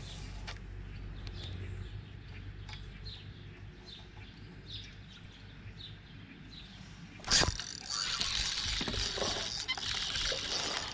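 Faint bird chirps over a low steady hum. About seven seconds in comes a sharp knock, then the steady whirring of a fishing reel being cranked.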